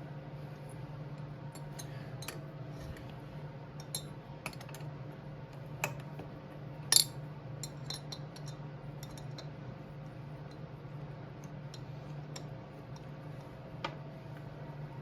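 Hand tools clicking and clinking against metal as the cylinder fasteners on a two-stroke dirt bike engine are worked loose, in scattered irregular clicks with a sharper clink about seven seconds in, over a steady low hum.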